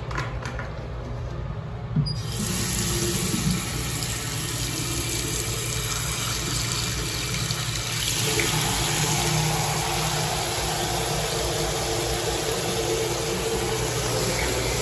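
Water running steadily from a tap into a canteen being refilled. It starts suddenly about two seconds in with a small knock.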